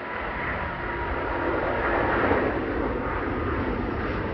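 Rolls-Royce Trent XWB turbofans of an Airbus A350-900 at takeoff power as the airliner climbs away just after lift-off: a steady rushing jet noise with faint high tones on top, growing somewhat louder about two seconds in.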